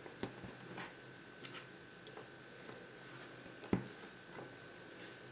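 A few small clicks and taps of plastic Lego pieces being handled on a table, the loudest a sharp knock nearly four seconds in.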